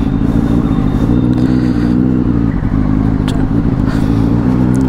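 Benelli motorcycle engine running steadily as the bike pulls away and rides at low speed.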